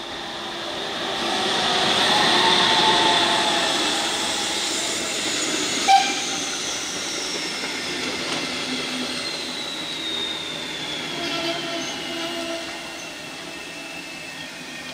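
A steam train passing by, loudest about two to three seconds in and then fading away, with a short whistle blip about six seconds in and a high squeal gliding down in pitch as it goes.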